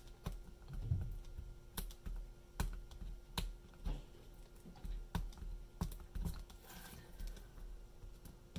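Irregular small clicks and taps, about one or two a second, from fingers and a plastic pry tool working on the opened iPhone SE 2020, pulling the battery's adhesive pull tabs and prying at the battery. A faint steady hum runs underneath.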